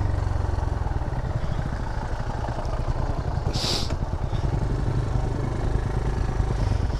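TVS Raider 125's single-cylinder engine running steadily as the bike is ridden, with one short hiss about halfway through.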